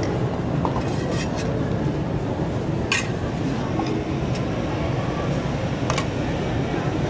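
Metal spoon clinking a few times against stainless steel sauce trays, the clearest clinks near the middle and near the end, over a steady low background rumble.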